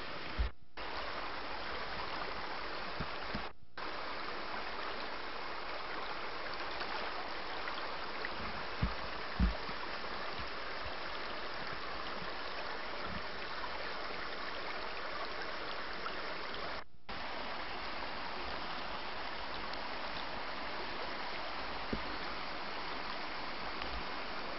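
Steady rush of running stream water. There are a couple of low bumps about nine seconds in, and the sound cuts out for an instant three times.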